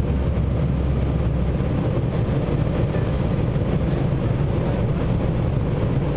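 Steady low rumble of an airliner cabin in flight.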